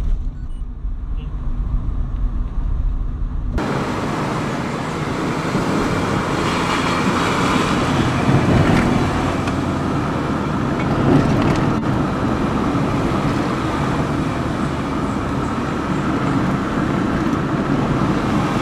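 Road noise of a moving vehicle: a low rumble for the first few seconds, then an abrupt change about three and a half seconds in to a fuller, steady rush of road noise.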